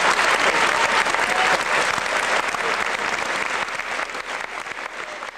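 Crowd applauding, a dense patter of many hands clapping that tapers off over the last couple of seconds.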